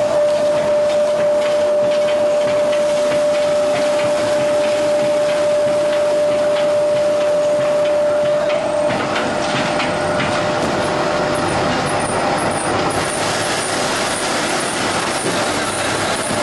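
BQ1813/4Z-J heavy-duty CNC spindleless veneer peeling and clipping lathe working a log: a loud, continuous mechanical noise with quick, irregular knocking and clatter of wood. About nine seconds in, a steady hum stops and the noise turns higher and hissier.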